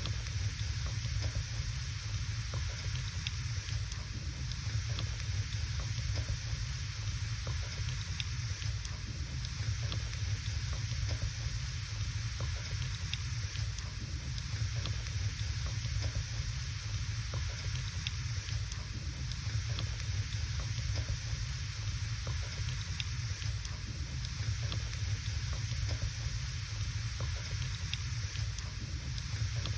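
Logs burning in a fireplace: a steady hiss with scattered small crackles and pops, over a constant low rumble.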